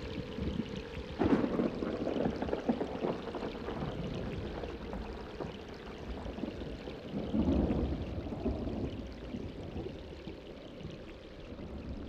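Steady rain with two low rumbles of thunder, the first breaking sharply about a second in and the second about seven seconds in. The rain fades down toward the end.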